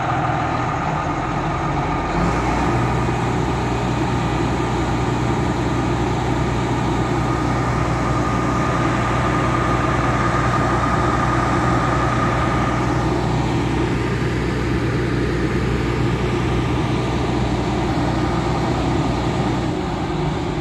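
Hyundai 505L crawler excavator's diesel engine idling steadily just after start-up. The low engine note changes and settles about two seconds in.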